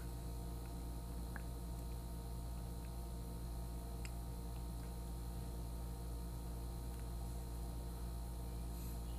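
Steady electrical hum with a few faint, light ticks.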